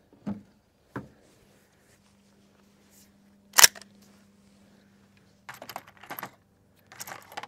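Metallic clicks and rattles of a gun being handled between shooting strings. One sharp clack comes about three and a half seconds in, and bunches of small rattling clicks follow near the end.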